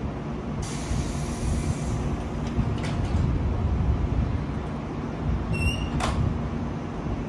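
JR Shikoku 7200 series electric train standing at the platform: a hiss of released air lasting about a second and a half, then a short high electronic tone about five and a half seconds in and a single clunk right after, over a steady low hum and rumble.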